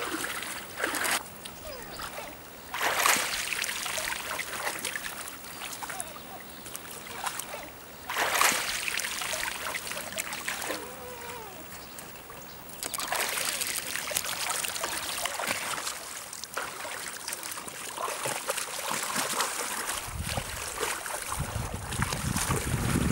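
Moose calf wading through shallow water, splashing unevenly with its steps. Wind buffets the microphone near the end.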